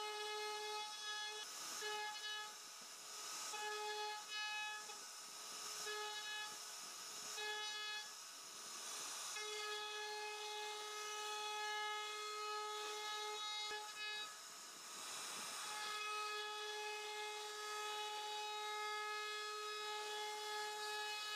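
CNC router spindle whining at a steady high pitch as its bit carves a relief pattern into a wooden panel. Several times the whine breaks up into short rushes of cutting noise.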